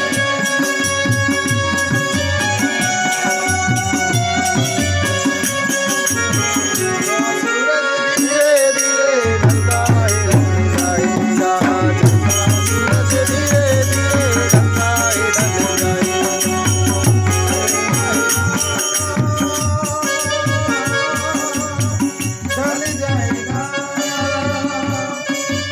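Harmonium and dholak playing a folk devotional tune, with quick high percussion strokes over the sustained reed tones. The low drum beat drops out for about a second around eight seconds in, then comes back.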